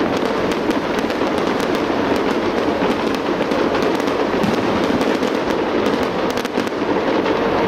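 Fireworks going off in rapid succession: a dense, continuous crackle of many small pops.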